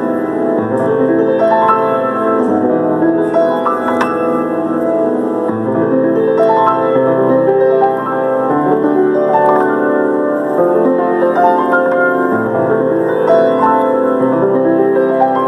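Solo piano playing full chords over held bass notes.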